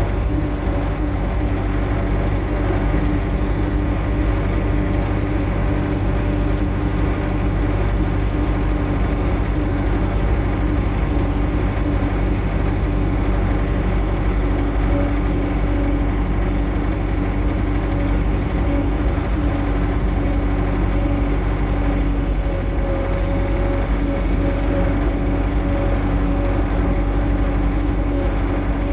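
Tractor engine running steadily at a constant speed, a loud unbroken drone.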